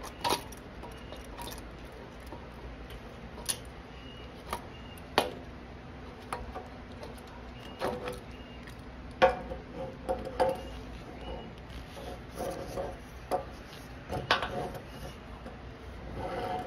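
Irregular clicks and knocks of plastic and metal parts being handled as the air filter housing and its mounting plate are unbolted and pulled off a small portable generator engine. Some of the knocks ring briefly.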